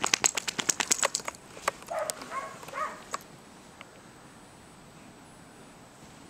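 A quick run of crunching clicks in deep snow for about a second, then a few short whining sounds from a dog.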